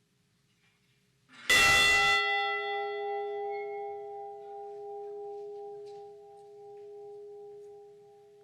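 A memorial bell struck once about a second in, then ringing on with a slowly fading hum, the higher overtones dying away first. It is tolled once for one lost crew member.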